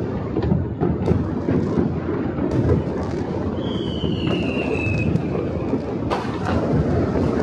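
Many distant fireworks going off across a city: a continuous rumble and crackle of far-off bursts, with sharper bangs scattered through. A falling whistle sounds about three and a half seconds in.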